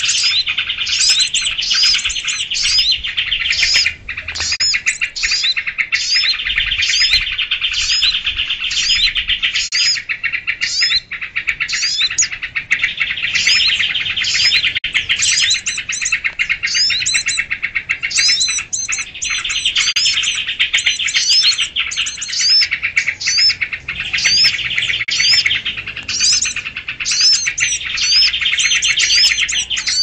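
A bird-lure recording of a noisy crowd of small songbirds. Dense, constant chattering and chirping, overlaid with a high rising note repeated a little more than once a second.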